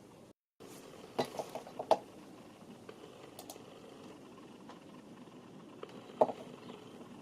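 Computer mouse clicking: a quick run of sharp clicks about a second in and another click a little after six seconds, over quiet room tone. The sound cuts out completely for a moment near the start.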